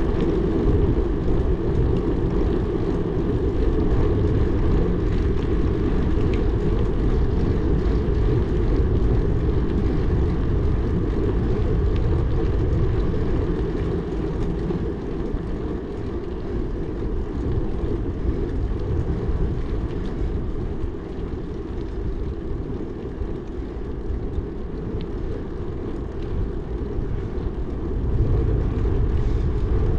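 Wind rushing over the microphone while cycling: a steady low rumble with no engine note. It eases a little about two thirds of the way in and picks up again near the end.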